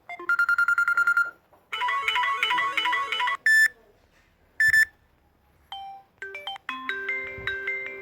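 Samsung Galaxy J2 phone playing short previews of several ringtones in turn, each cut off as the next is tapped. First comes a fast pulsing beep, then a short electronic tune, two brief tones, and from about six seconds in a tune of bell-like notes.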